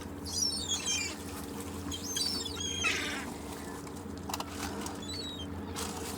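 Seagulls calling in quick runs of short, high notes, with two bouts in the first three seconds and fainter calls after. A steady low background of beach sound runs underneath.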